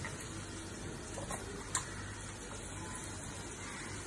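Raw peanuts and tempering spices frying in hot oil in a kadai, a steady low sizzle, with two short clicks a little over a second in, the second one sharp and the loudest.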